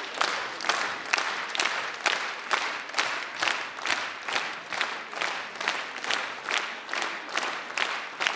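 Audience applauding, the clapping falling into rhythmic unison at about two claps a second.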